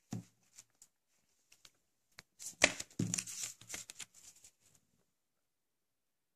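A Blu-ray steelbook case and its packaging being handled: a few light clicks, then a denser run of clicks and rustling about two and a half seconds in, which dies away by about the fifth second.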